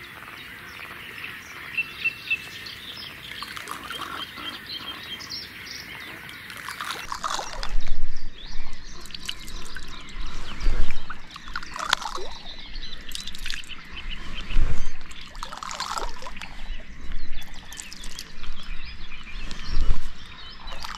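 Birds calling for the first several seconds. Then, about seven seconds in, a run of irregular splashes and thuds, a few seconds apart, as bait is thrown into the water to feed the swim.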